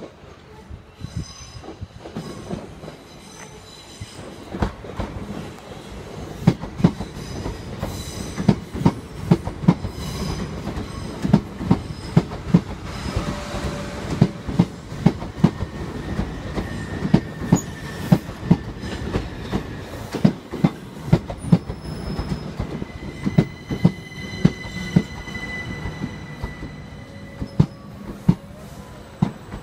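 Southeastern Class 375 electric multiple unit running past along the platform: a steady clickety-clack of its wheels over rail joints, with a thin high wheel squeal in the second half.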